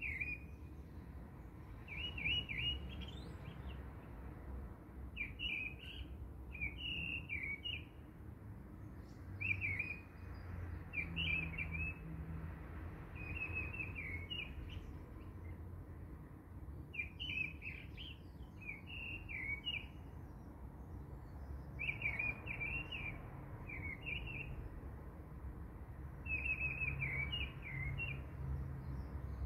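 Birds chirping in short twittering phrases, repeating every second or two, over a low rumble.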